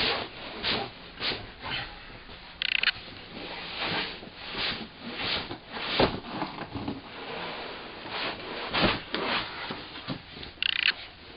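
Rustling and scraping of packaging as parts are handled and unpacked from a box, an irregular run of scuffs with a couple of brief sharper crinkles.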